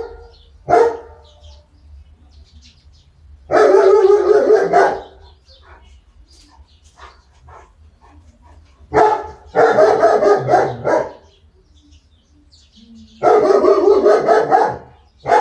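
A dog barking in bouts: one bark about a second in, then three volleys of rapid barking, each lasting about a second and a half, around four, ten and fourteen seconds in.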